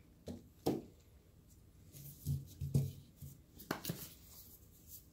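A raw beef brisket being turned over and laid down on a metal sheet pan: a few scattered soft slaps and knocks of wet meat and the pan, with a couple of sharp clicks.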